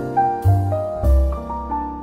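Instrumental break music: a piano melody of separate notes that start sharply and fade, played over low bass notes.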